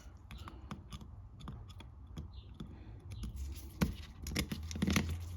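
Light, irregular clicks and taps of small metal carburetor parts being handled as the jet is fitted back into a lawn mower carburetor, a few louder clicks near the end, over a low steady hum.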